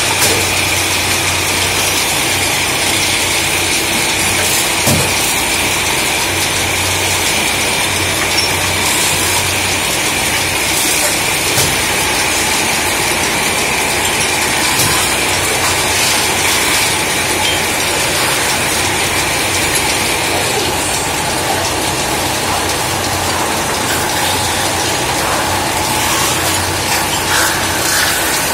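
A belt-driven metal-spinning lathe, run by an electric motor, works an aluminium disc into a cooking pot under a hand-held lever tool. It makes a steady mechanical running noise with a low hum and a high whine that fades out about two-thirds of the way through, with an occasional knock.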